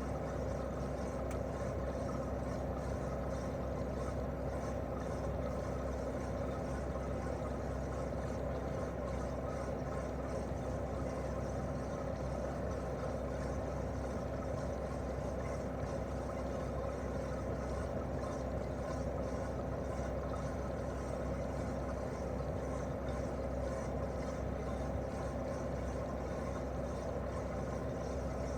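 Daikin R28RMV mini-split heat pump outdoor unit running steadily in heating mode: the twin-cylinder swing compressor hums with steady low tones under a broad rushing noise from the unit.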